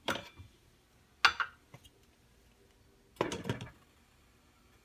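A glass pot lid and a stainless steel pot clattering as the pot is covered: three short clinks and knocks, the sharpest about a second in.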